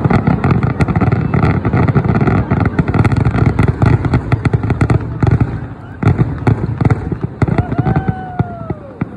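Fireworks going off: a loud, dense run of rapid crackling pops and bangs that thins out and quietens over the last few seconds. Near the end, a brief tone rises and then falls.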